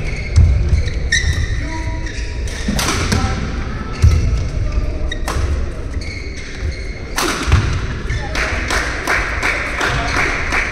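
Badminton play on an indoor court: sharp racket strikes on the shuttlecock and heavy thuds of players' feet landing and lunging on the court floor, repeated several times, over background voices in the hall.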